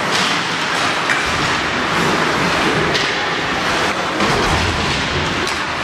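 Ice hockey play in a rink: a steady hiss of skates scraping the ice, broken by a few sharp knocks of sticks and puck.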